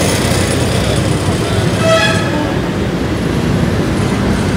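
Steady rumble of a vehicle driving along a city street, engine and tyre noise, with a short high tone about two seconds in.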